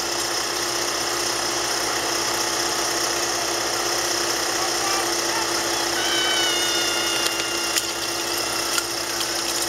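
Portable fire pump's small engine running steadily with a constant hum. A high held tone starts about six seconds in and lasts about two seconds, and a few sharp knocks come near the end.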